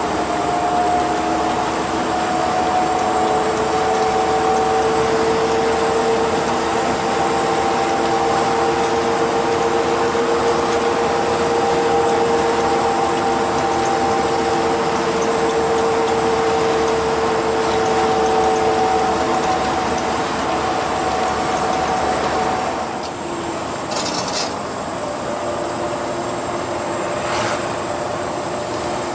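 Ikarus 256 coach cruising at road speed, heard from inside, its Rába rear axle howling with a steady multi-tone whine over the engine and road noise. Near the end the overall level dips and the whine changes to a weaker, lower-lying tone, with a couple of faint clicks.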